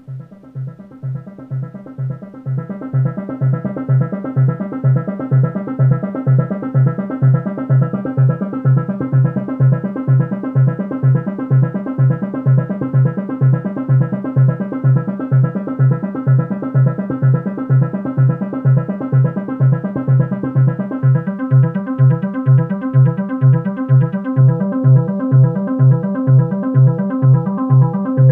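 Korg Electribe 2 synthesizer playing a short looping arpeggio-like sequence of quick, evenly repeating synth notes. It fades in over the first few seconds, and about two-thirds of the way through its tone changes.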